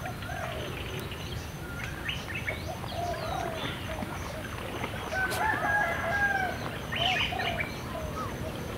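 Birds calling and chirping in short, rising and curving notes, with a longer held call about five seconds in.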